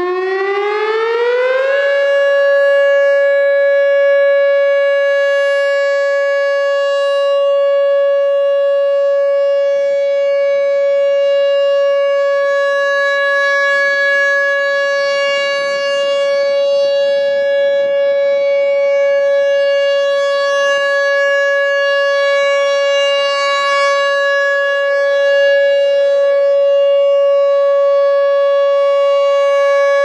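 Whelen 3016 electronic tornado siren sounding its steady alert tone for a weekly test. The pitch rises over about two seconds as it starts, then holds one steady tone. The loudness swells and fades slightly as the rotating speaker array turns.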